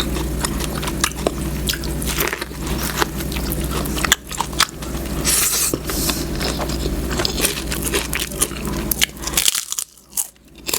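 Close-miked eating: biting and chewing, with many small sharp clicks and mouth noises, dropping off briefly near the end.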